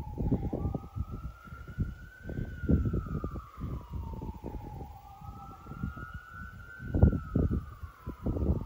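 A siren wailing, its pitch rising slowly and falling back about every four and a half seconds. Low irregular thumps and rumble on the microphone run underneath, the strongest about seven seconds in.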